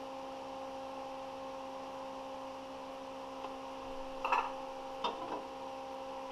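A steady hum with several even tones, broken about four seconds in by a short clatter and then two light knocks, as things are handled on the kitchen counter.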